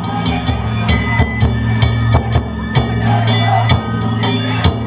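Danjiri hayashi: taiko drums beaten at a quick, uneven beat of two or three strikes a second, with the ringing of hand gongs (kane), played on a danjiri festival float.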